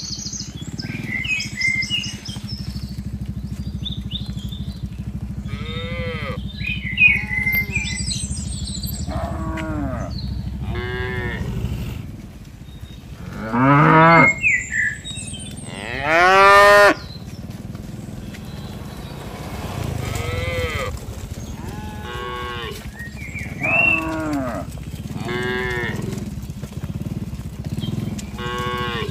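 A herd of cattle mooing again and again, short calls from several animals overlapping, with two loud long moos about halfway through. A low steady hum runs underneath for the first part.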